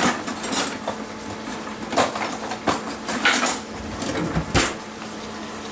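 Rummaging in a wooden drawer: about six sharp clinks and knocks of cutlery and other items being moved around.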